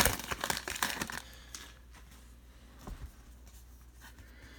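Crinkling of a foil trading-card pack wrapper being handled, dense for about the first second and then only faint, scattered rustles.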